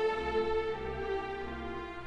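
Background music: slow string music with long held notes that change pitch every second or so.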